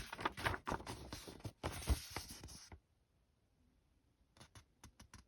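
Paper rustling as the kit's instruction booklet is handled and its pages turned, for about the first three seconds, then a few short, soft ticks near the end.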